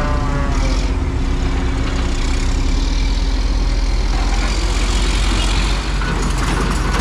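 Heavy diesel engine running steadily, with a falling whine in about the first second.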